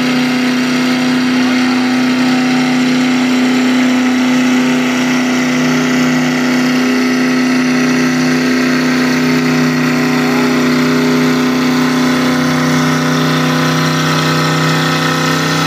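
Engine running at one steady speed: a loud, even drone with no revving.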